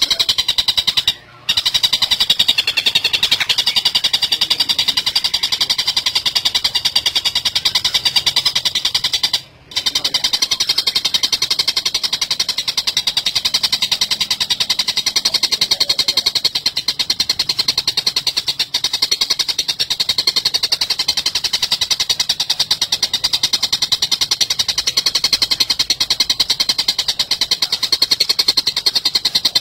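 Oriental dollarbird calling in a rapid, unbroken chatter of high notes, with two brief breaks, about a second in and again about ten seconds in.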